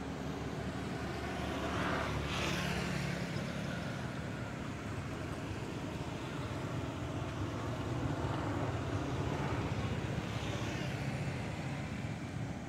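Steady rumble of road traffic with engines running, swelling louder twice, about two seconds in and again near ten seconds.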